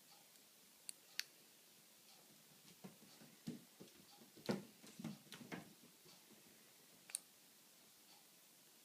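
A Bengal cat's paws thumping and scuffing on a tiled floor as she pounces, in a cluster of soft thumps through the middle. There are a few sharp clicks about a second in and again near the end.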